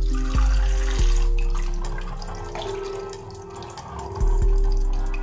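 A thin stream of water from an aquarium pump's tube splashing onto the buckets of a small 3D-printed plastic waterwheel as it turns. Soft background music with low notes plays underneath.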